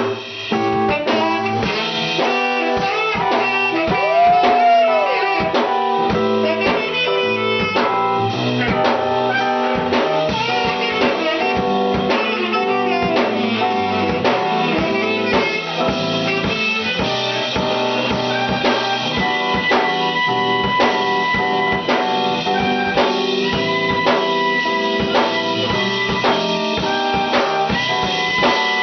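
Music with guitar and a drum kit keeping a steady beat, in a bluesy, jazzy style.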